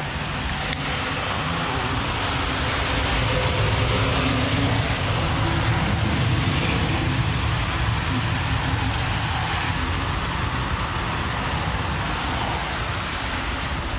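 Steady highway traffic noise that swells between about four and eight seconds in, as a vehicle passes, then eases off.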